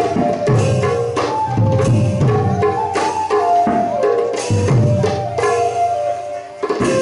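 Gayan-Bayan ensemble music: khol drums beat a steady rhythm of deep strokes with sharp cymbal clashes, over a held melody line. The music eases briefly just before a strong stroke near the end.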